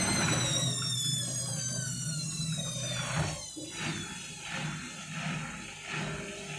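Indesit washing machine's motor whine falling in pitch as the drum slows out of its final spin, which an unbalanced load has cut short. After about three seconds the drum turns over slowly in short pulses, about two a second.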